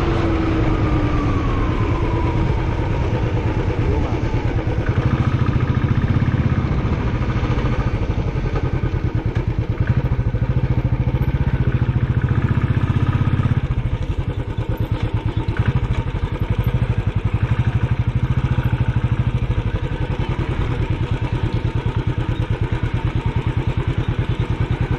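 Motorcycle engine running steadily, its firing pulses close and even, easing off briefly about halfway through.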